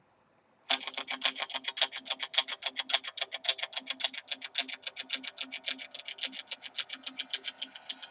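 Intro music starting just under a second in: a fast, even rhythm of short strokes, about eight a second, over a steady low note.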